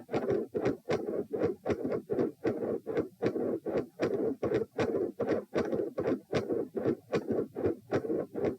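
Human heart sounds picked up at the pulmonic (P) area of the chest, the person lying down: a steady, regular beat of about two pulses a second.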